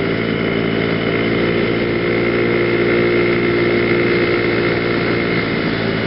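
A Genuine Buddy 125cc scooter's single-cylinder four-stroke engine running steadily at cruising speed, with an even, nearly constant pitch.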